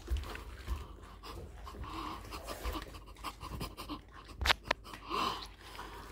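Panting breaths from a person in a latex rubber fox suit crawling on all fours, with soft thumps of gloved hands and knees on a rug and two sharp clicks about three-quarters of the way through.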